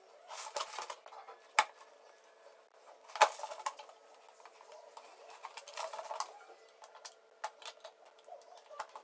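Utility-knife blade cutting through the side of an empty plastic engine-oil bottle: irregular bursts of scraping and crackling with several sharp clicks, the loudest a little after three seconds, over a faint steady hum.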